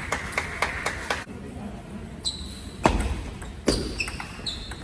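Table tennis ball clicking off paddles and the table in a rally, with fainter clicks from other tables; two louder knocks, one just before 3 seconds in and one just before 4.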